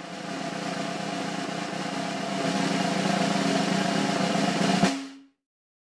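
A group of students making a deliberate din of noise, a continuous drum-roll-like rattle of drumming and banging. It grows louder about halfway through and cuts off suddenly near the end.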